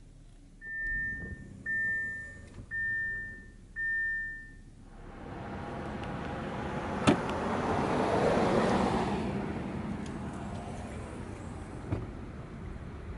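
Audi Q7 warning chime sounding four times at one steady pitch, followed by the 3.0 TFSI V6 engine running, its sound rising to a peak and then easing back, with a sharp click in the middle.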